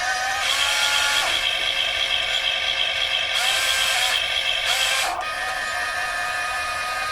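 Electric motors of radio-controlled construction machines whining steadily. The whine shifts in pitch a few times as the load changes, with short bursts of hiss in between.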